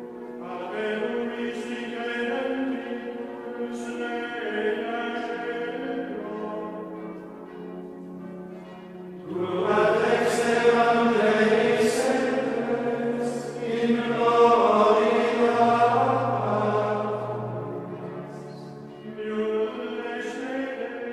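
Background music: a choir singing chant-like music in long held chords, swelling louder about nine seconds in and easing off near the end.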